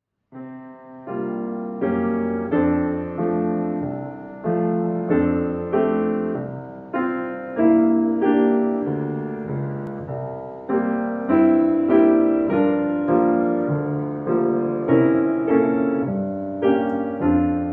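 Grand piano played solo: a slow Christmas song in struck chords, each ringing and fading before the next, with the tune carried on the top notes.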